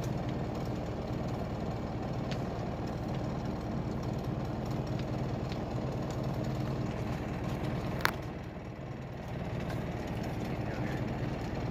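Fishing boat's engine running steadily, with one sharp click about eight seconds in.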